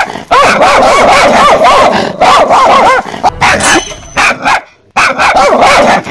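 Loud, rapid dog barking from a fake dog bark used to startle people, with a short break about four and a half seconds in.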